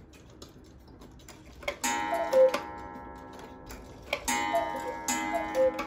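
Large Hones Black Forest chalet cuckoo clock ticking, then sounding the hour as its minute hand is turned: three falling two-note cuckoo calls, each with a gong strike that keeps ringing.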